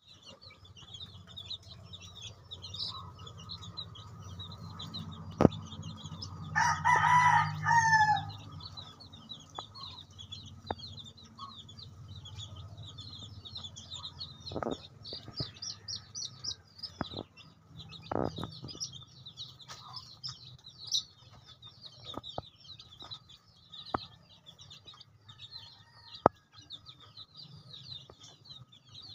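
A group of one-week-old native chicks peeping constantly in rapid, high cheeps. About seven seconds in, an adult chicken gives one loud call lasting about a second and a half, and a few sharp knocks sound here and there.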